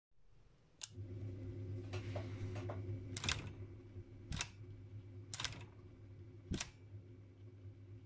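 Facit ET3 typewriter: a click just before a second in as its motor starts a steady hum, then the backspace mechanism clacking sharply, metal levers and pawls snapping, four times about once a second, with a few lighter clicks before them.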